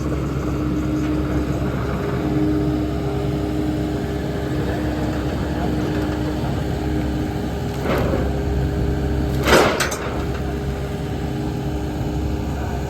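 A heavy engine runs steadily with a constant hum. There is a clunk about eight seconds in and a louder clunk about a second and a half later.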